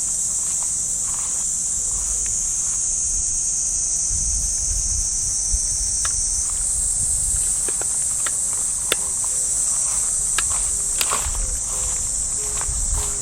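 Cicadas in the trees buzzing in a dense, steady high-pitched chorus. Footsteps on the path and scattered light clicks and rustles sound beneath it.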